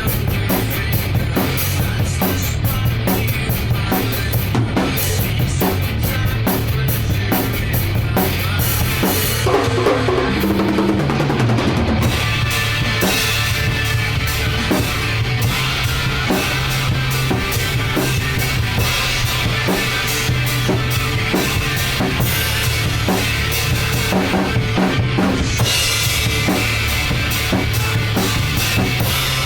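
Drum kit with bass drum, snare and cymbals keeping a steady rock beat, played along with a full-band rock song. About ten seconds in the cymbals drop out for a couple of seconds under a falling pitch glide, then the full band and cymbals come back in.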